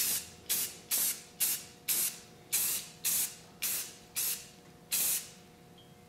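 Aerosol can of Rust-Oleum engine primer spraying in short hissing bursts, about two a second, laying light coats of primer; the bursts stop about five seconds in.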